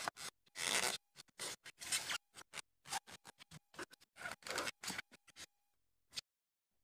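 A metal vaccine gun being pried and slid out of its stiff clear plastic packaging tray: a run of short, irregular scratches and rustles of plastic with brief gaps between them.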